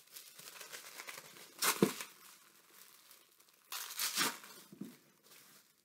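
Paper wrapping crinkling and tearing as a wrapped book is unwrapped by hand, with sharper, louder rips about two seconds in and again around four seconds.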